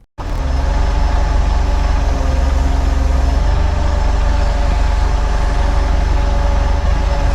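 Small forklift's engine running steadily with a deep, rapid low pulsing. It cuts in abruptly at the very start.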